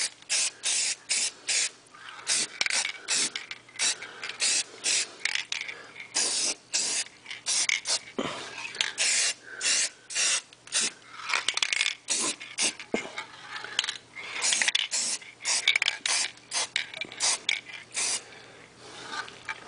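Aerosol can of yellow spray paint hissing in many short bursts, about two or three a second, with a few longer sprays in between.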